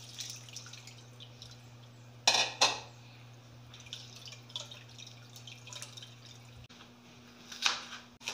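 Milky coconut liquid trickling and dripping through a stainless mesh strainer as grated coconut is poured in and squeezed by hand to press out fresh coconut milk. Two sharp knocks, the loudest sounds, come a little over two seconds in, with small ticks and a short clatter near the end.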